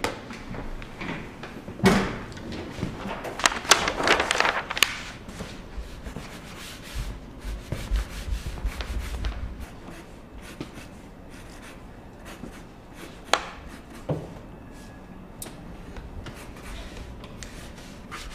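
Drawing paper rustling and rubbing as it is handled and laid out on a drawing table for a new comic page, with a few sharp knocks and clatters, the loudest about two seconds in and in a cluster around four seconds in.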